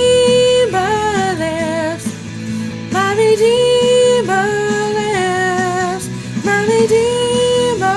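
A woman singing over instrumental backing music: three sung phrases, each rising to a long held high note with vibrato, about three seconds apart.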